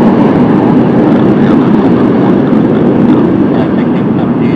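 Jet airliner's engines: a loud, steady rumble.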